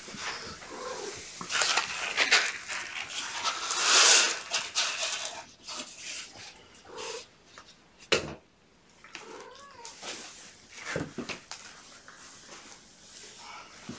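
Kittens mewing a few short times over the rustle and clatter of things being handled, loudest around four seconds in, with one sharp knock about eight seconds in.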